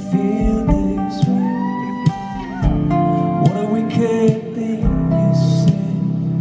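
Live acoustic band music: strummed acoustic guitar with a melodic line gliding in pitch above it.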